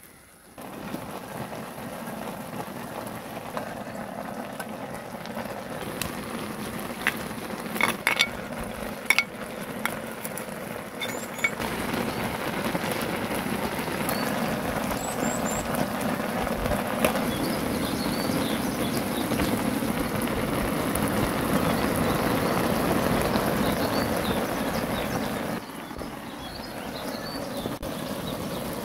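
Ramyun broth bubbling on a cast-iron cauldron-lid griddle, a steady hiss that grows louder. Metal tongs and a spoon clink against the lid several times between about 6 and 11 seconds in. The sound drops to a softer hiss near the end.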